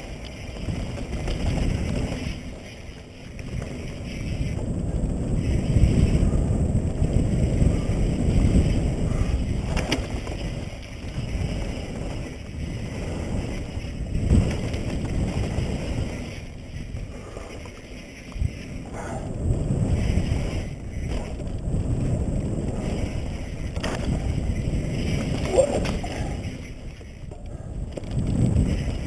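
Wind buffeting the helmet camera's microphone and mountain-bike tyres rumbling over a dirt trail on a fast descent, rising and falling every few seconds, with a few sharp knocks as the bike hits bumps.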